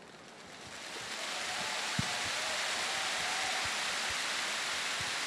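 A steady rushing noise like heavy rain or running water swells in over about the first second and then holds, with a few faint low thumps beneath it.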